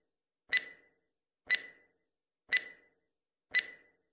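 Countdown timer sound effect: a sharp clock-like tick with a brief high ring, four times, one a second.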